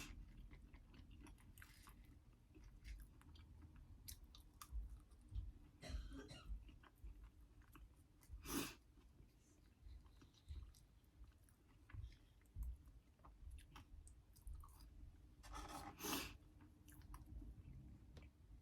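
A person chewing food quietly close to the microphone, with faint wet mouth clicks and a few louder moments about halfway through and near the end.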